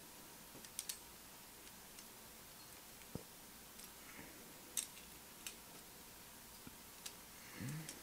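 A few faint, irregularly spaced plastic clicks and ticks as an Intel stock CPU cooler is handled and its push-pin fasteners are turned.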